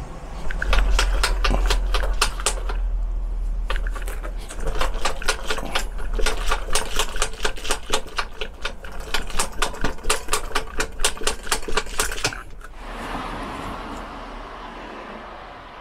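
Rattling from the Trek Domane's head tube and front IsoSpeed as the front end is rocked by the handlebar: a rapid clacking of about four clicks a second, with a short break near three seconds and stopping about twelve seconds in. It is the play that the owner is taking the IsoSpeed apart to find.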